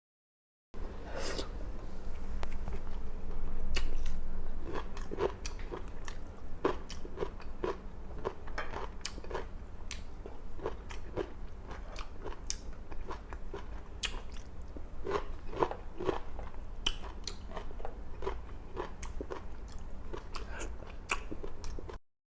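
Close-miked eating: chewing of a meal of grilled milkfish, rice and cucumber, lettuce and tomato salad, with many small crisp crunches and mouth clicks. A moment of dead silence at the very start and end marks edit cuts.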